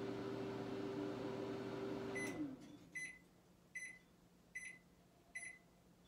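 Microwave oven running with a steady hum that winds down about two seconds in as the cooking cycle ends. Then it beeps five times, evenly about 0.8 seconds apart, signalling that the food is done.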